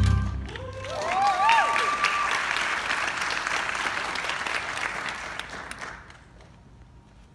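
Theatre audience applauding as a song ends, the band's final low note dying away at the very start. A voice cheers, rising in pitch, about a second in, and the clapping fades out after about six seconds.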